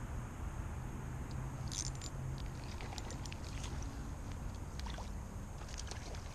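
Steady low outdoor rumble with a faint hum, with scattered small clicks and ticks about two seconds in, around three seconds and again near the end.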